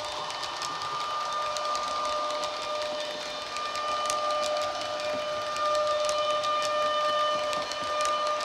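Sound-decoder playback of an ÖBB Taurus-hauled Railjet under way, heard through the model's own speaker: a steady high electric whine, with light clicks of the model's wheels running over the track.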